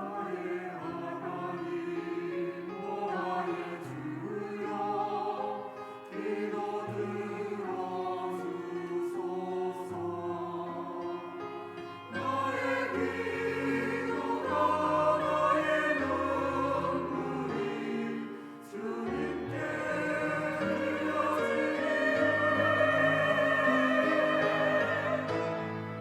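Church choir singing an anthem in several parts, growing louder about twelve seconds in.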